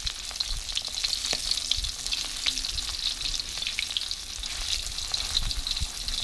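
A whole short mackerel (pla thu) frying in shallow oil in a steel wok: the oil sizzles and spits with a constant crackle of pops, with a few knocks and scrapes of the metal spatula against the fish and the wok.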